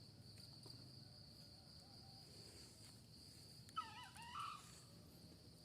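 Insects droning steadily at a high, even pitch. About four seconds in comes a short wavering bird call.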